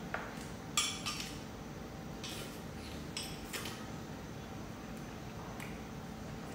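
Metal spoon clinking and scraping against a small ceramic bowl and dishes on a table: a handful of separate sharp clinks, the loudest about a second in.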